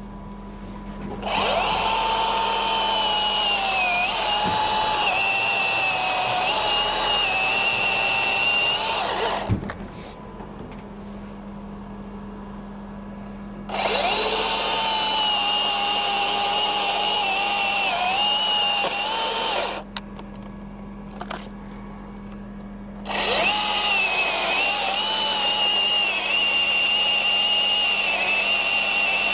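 Milwaukee battery-powered top-handle chainsaw making a bypass cut through a limb, run three times for several seconds each, its motor whine dipping and wavering in pitch as the chain bites into the wood. A steady low hum carries on through the pauses.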